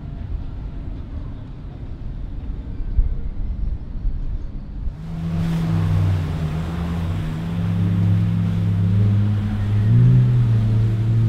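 Motorboat engines running: a low rumble, then about five seconds in a louder, steady engine drone that shifts slightly in pitch as a boat comes close.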